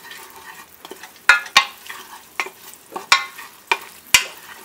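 Onions, whole spices and red chilli powder being stirred in sizzling oil in a pressure cooker: a steady sizzle with about six sharp scrapes and knocks of the stirring utensil against the pot, irregularly spaced.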